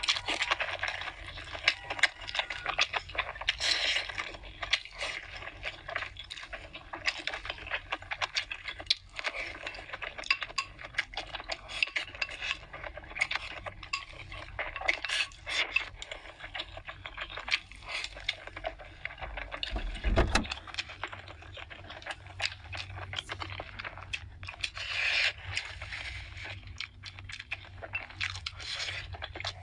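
Close-miked eating: noodles slurped in repeated bursts and chewed, with chopsticks clicking against a glass bowl and plate, and a single low thump about two-thirds of the way through.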